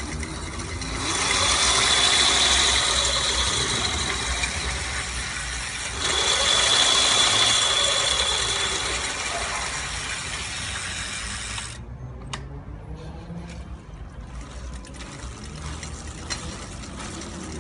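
Homemade electric bicycle's hub and chain-drive motors running the rear wheel with a high whine and rushing noise. The sound surges up about a second in and again at about six seconds, easing off each time. Near twelve seconds the power cuts off suddenly and the wheel coasts with light ratchet-like ticking.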